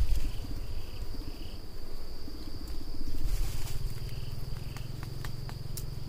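A steady, high, thin insect trill runs unbroken over low rumbling noise on the microphone. A few sharp clicks come near the end.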